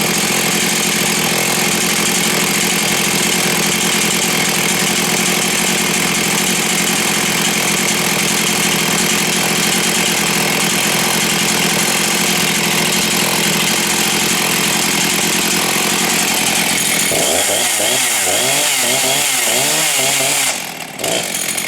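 Jonsered 625 II two-stroke chainsaw running at high speed, steady for most of the time. About four seconds before the end its pitch starts wavering rapidly up and down, and the level dips briefly just before the end.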